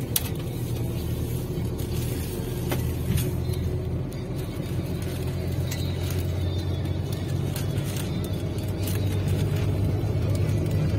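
Steady low drone of a moving intercity bus heard from inside the cabin while cruising on the motorway, with a few sharp clicks.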